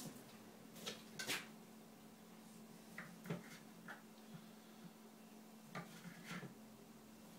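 Knife cutting a Campari tomato: a few scattered light taps and clicks, over a faint steady hum.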